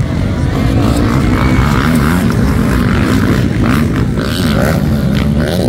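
Several motocross dirt bikes' engines running and revving on the track, their pitches rising and falling as the riders work the throttle over jumps.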